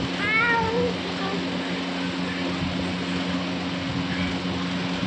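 Room air cooler running with a steady hum. In the first second a toddler gives one short, high squeal that bends up and down.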